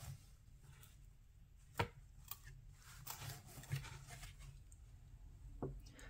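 A thick cardboard page of a board book being turned and laid flat: a few soft knocks, the loudest about two seconds in, with light rustling of the page.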